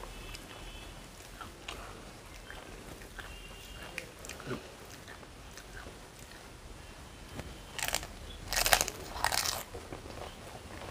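Crunching of a crisp, filled dahi puchka (golgappa) puri shell being bitten and chewed, in a few loud crunches about eight to nine and a half seconds in. Before it, faint small crackles of fingers handling the puris on the plate.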